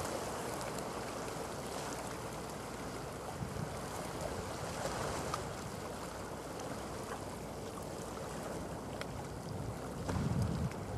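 Wind and sea noise on a shoreline microphone, with a faint steady hum and a stronger gust of wind buffeting the microphone about ten seconds in.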